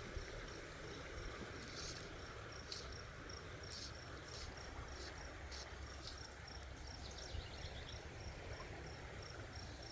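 Faint insect chirping outdoors: a thin high chirp repeating in an even, steady pulse. A few brief soft rustles sound here and there.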